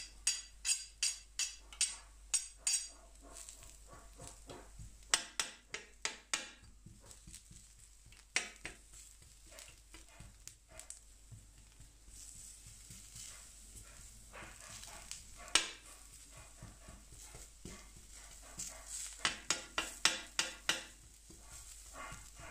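A wok spatula clacking and scraping against a carbon steel griddle in quick runs of strokes, about three a second, stirring onions and garlic frying in a little oil. A faint sizzle runs underneath.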